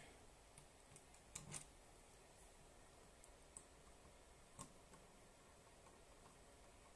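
Near silence with a few faint clicks, two close together about a second and a half in and one more about four and a half seconds in: small plastic parts of a cassette Walkman being handled during reassembly.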